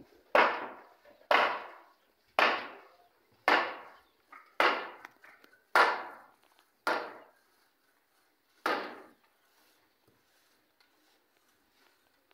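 Hammer blows on wooden boards, eight sharp strikes about a second apart, each ringing briefly; the last comes after a slightly longer pause.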